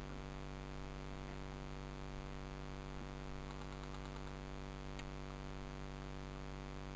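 Steady electrical hum with static hiss, with a few faint ticks past the middle and one sharp click about five seconds in.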